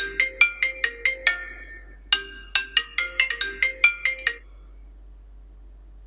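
iPhone ringtone for an incoming call: a quick marimba-like melody of bright struck notes, played in two phrases with a short break between them, that cuts off about four and a half seconds in when the call ends.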